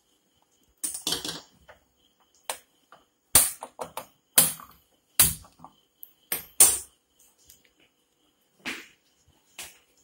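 Irregular sharp knocks and clicks in a kitchen, about a dozen, the loudest in the middle stretch.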